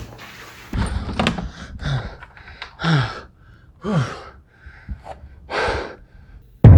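A man gasping and breathing heavily in fright: about five loud breaths, roughly one a second, several of them sliding down in pitch.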